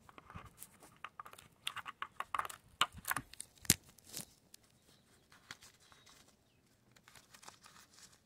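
Oil filler cap on a 2007 Mercury 115 hp outboard being twisted loose and pulled off to vent the crankcase while the oil drains: a run of clicks and scrapes with one sharp click a little past halfway through the first half, then a few faint clicks.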